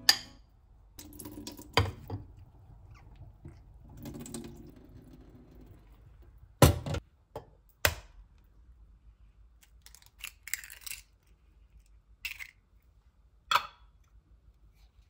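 Kitchen handling sounds of a glass bowl on a countertop: two solid knocks about a second apart near the middle, then softer taps and crackles as a raw egg is cracked into the bowl of grated zucchini and potato.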